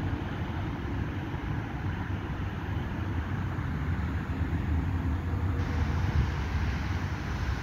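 LOWA ET54 tram train rolling away along the track, its running noise fading into a steady low rumble of wind on the microphone and road traffic.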